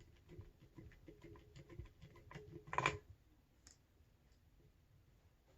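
Faint clicking and scraping of an Allen key working a stiff screw out of an air rifle's action, with one brief louder rasp just before the middle.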